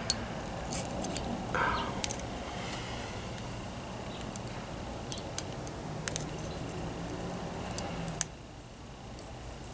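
Scattered small clicks and taps of a printed circuit board and electronic kit parts being handled, the sharpest a little after eight seconds.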